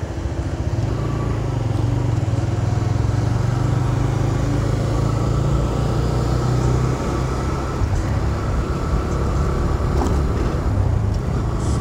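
TVS Raider 125's single-cylinder engine running steadily while the motorcycle is ridden at cruising speed, with wind and road noise over it.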